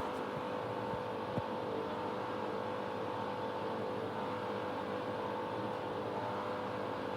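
Candy washing machine running with a steady hum at the end of its intermediate spin, before it fills for the final rinse. A small tap about a second and a half in.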